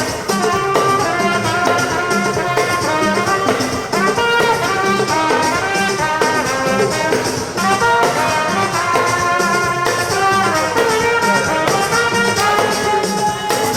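Background music with brass melody over a steady beat.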